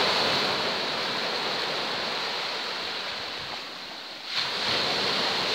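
Small sea waves breaking and washing up the shore at the water's edge: a steady hiss of surf that slowly dies away, then a fresh wave breaks about four seconds in.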